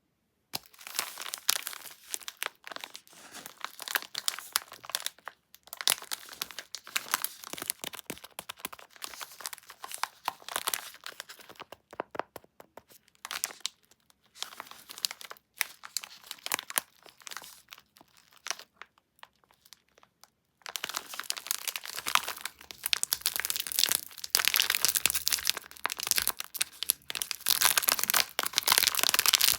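Packaging of LU Prince chocolate biscuits being crinkled and torn open: dense crackling and tearing in irregular bursts with short pauses, louder and steadier for about the last third.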